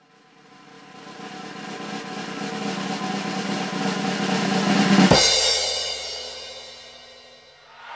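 Soundtrack music: a drum roll and swelling build-up that grows louder for about five seconds to a single hit with a falling low boom, then rings out and fades away.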